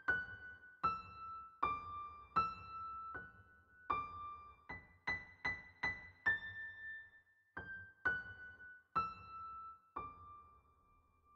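Slow solo piano background music: a gentle melody played one note at a time, the notes quicker for a moment around the middle, ending on a held note that rings out and fades.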